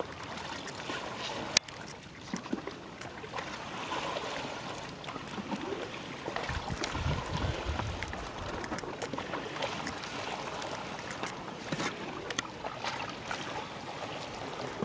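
Brine splashing and trickling as it is scooped and poured from a metal pail across a salt pan, with scattered sharp clicks and a low rumble about halfway through.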